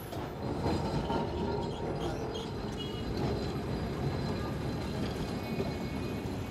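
Kolkata tram car rolling along street rails: a steady rumble of wheels and car body that grows louder about half a second in and then holds.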